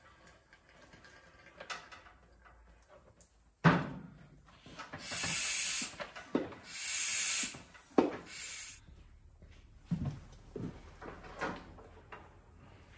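A sharp knock, then two hissing blasts about a second each, followed by scattered knocks and clunks of work on metal.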